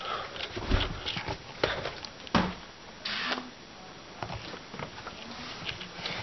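Handling noise from a handheld camera carried while walking: scattered light knocks and clicks, a louder thump a little over two seconds in, and a brief rustle about a second later.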